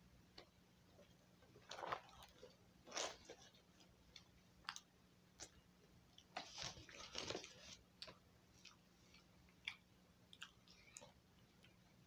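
A person chewing a bite of cooked venison and Wagyu beef patty with the mouth close to the microphone: soft, scattered wet smacks and clicks, busiest about two and three seconds in and again in a run around the middle.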